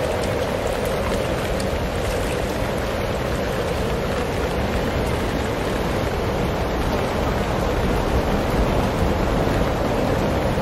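Steady wind rushing over the microphone, an unbroken rumbling noise.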